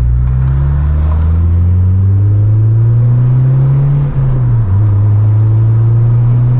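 Honda Civic Si's K24 four-cylinder with a Full Race cat-back exhaust, accelerating with a low rumble. The engine note climbs steadily, drops briefly at a gear change about four seconds in, then climbs again.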